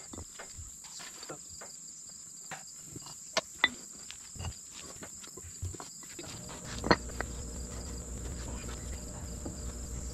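Insects chirring steadily at a high pitch, with scattered sharp clicks and knocks. A low steady rumble comes in about two-thirds of the way through.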